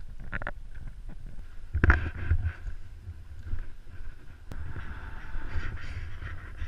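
Skis swishing through deep powder snow, with a sharp swish about two seconds in and a longer one near the end, over a low wind rumble on the microphone.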